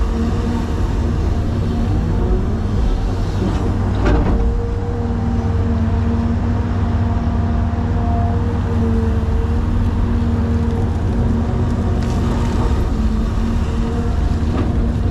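Cat 336 hydraulic excavator at work: a steady diesel engine drone with a higher hydraulic whine coming and going, and a single clank about four seconds in.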